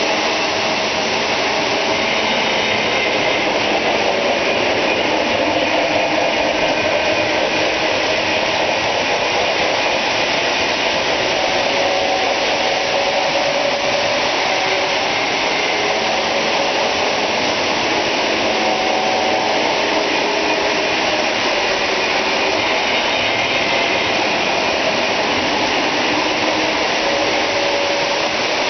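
Steady whirring rumble of many Lionel O-gauge model trains running at once: electric motors and wheels rolling on three-rail track, with faint tones coming and going over it.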